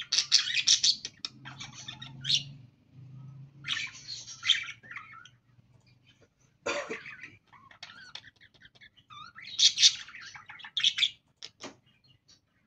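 Pet budgerigars chattering in several bursts of quick, high warbling, with one louder, sharper call about halfway through.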